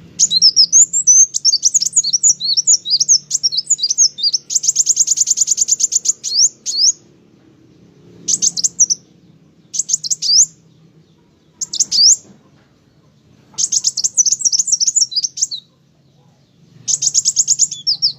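A kolibri wulung sunbird singing energetically in high, rapid twittering phrases. A long run of notes with a fast, even trill in the middle is followed by shorter bursts separated by pauses of a second or two.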